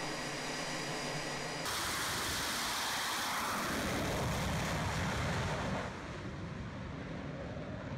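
F/A-18 jet engines at full power on an aircraft carrier catapult, first with a steady whine. About two seconds in a much louder jet roar takes over as the jet launches, dropping back about six seconds in.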